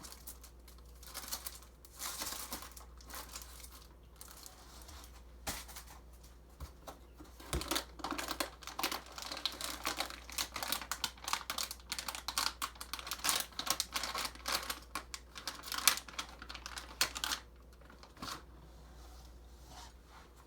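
Packaging being unpacked: plastic and packing material crinkling and rustling with irregular clicks, in a short spell early on and then a longer, busier stretch. A faint steady low hum runs underneath.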